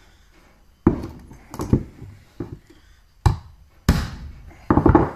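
A claw hammer strikes a bent steel Simpson oven door hinge lying on a wooden floor, about half a dozen sharp blows with a quick flurry near the end, to knock the hinge straight.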